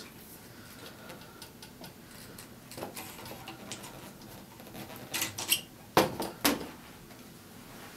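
A few scattered clicks and knocks of metal camera-rig parts being handled, as handlebars are loosened and slid off the rod rails; the sharpest knock comes about six seconds in.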